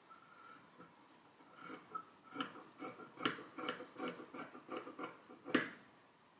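Scissors cutting curtain fabric in a run of quick snips, about two to three a second, starting about one and a half seconds in, the last snip the loudest: the factory selvage edge being trimmed off.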